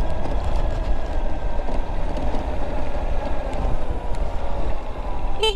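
Motorcycle running under a steady, heavy low rumble of wind and engine noise, with no break. A short, sharp high-pitched sound cuts in near the end.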